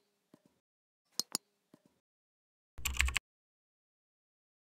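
Computer mouse clicks, each a quick press-and-release pair, then a short dense run of keyboard keystrokes about three seconds in as a new value is typed into a field.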